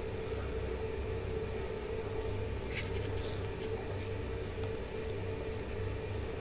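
A steady low machine hum, with a few faint clicks and scrapes as a zucchini is pierced and cored with a screwdriver.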